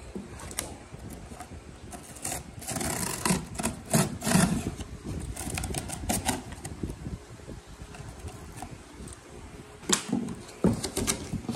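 A cardboard bike-frame box being opened by hand: cardboard flaps and plastic wrapping rustling and scraping, with irregular clicks and knocks. The rustling is densest a few seconds in, and another cluster of clicks comes near the end.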